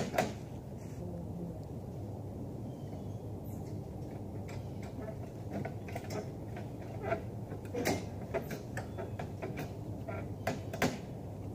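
Scattered light knocks and clicks from things being handled and set down, sparse at first and more frequent in the second half, over a steady low rumble.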